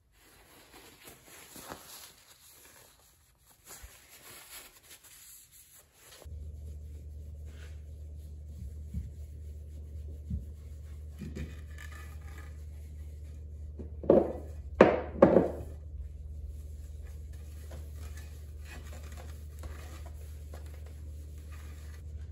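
A cloth rubbing paste wax onto a steel axe head, soft scuffing strokes. A steady low hum starts about six seconds in, and about two-thirds of the way through come three sharp knocks in quick succession.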